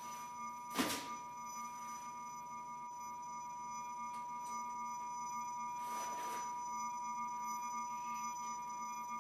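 A steady, faint electronic whine of two close high tones, with a single sharp click about a second in and a soft rustle around six seconds.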